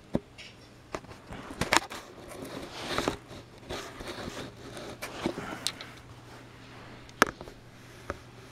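Scattered, irregular sharp clicks and knocks of plastic toy trains and track, over a faint steady low hum.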